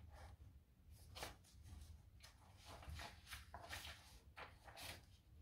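Paper pages of a book being turned and handled: a series of soft, faint rustles.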